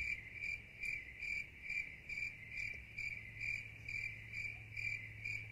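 Crickets chirping in a steady pulse, about two to three chirps a second, over a low hum, then cutting off abruptly. This is the stock 'crickets' sound effect that marks an awkward silence.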